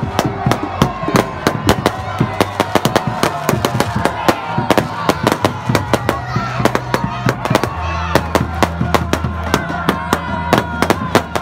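Aerial fireworks going off in a rapid, irregular string of sharp bangs and crackles, several a second, with voices underneath.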